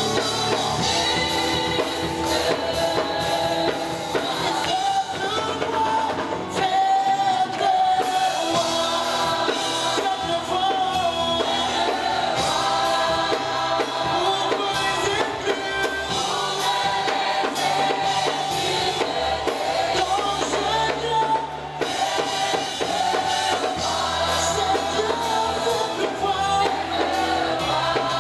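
Live worship music: a praise team singing a French worship song with band accompaniment, keyboard and drums.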